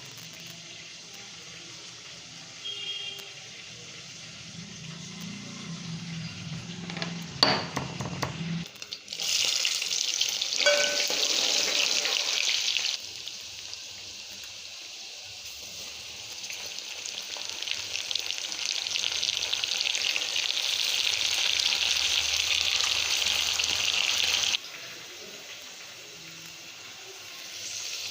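Food sizzling as it fries in hot oil in a cooking pot. A sharp clatter comes just before the sizzle starts, about seven seconds in. The sizzle eases for a few seconds partway through, then returns and cuts off suddenly near the end.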